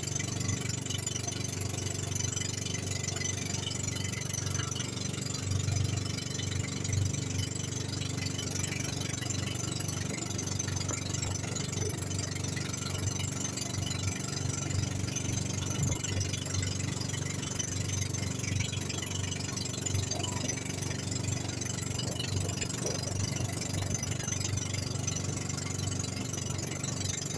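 Outrigger boat's engine running steadily at cruising speed: a constant low hum with a steady hiss above it.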